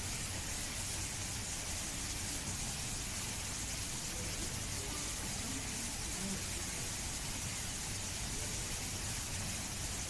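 Steady background hiss with a low hum underneath and faint distant voices.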